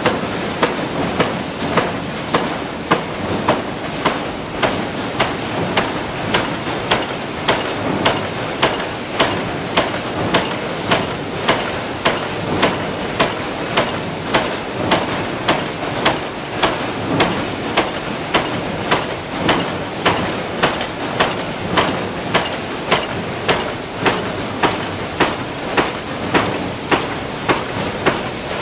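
Automatic power press stamping small steel hinge parts: a steady rhythm of sharp metallic strokes, a little under two a second, over a constant hum of factory machinery.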